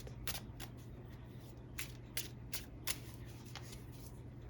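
Tarot cards being handled and shuffled: about eight short card flicks and snaps at uneven intervals, over a faint steady low hum.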